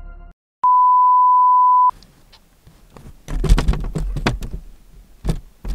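A steady, single-pitched electronic beep lasting just over a second, the kind of edited-in bleep that covers a word. It is followed by rustling handling noise from the camera with several sharp knocks.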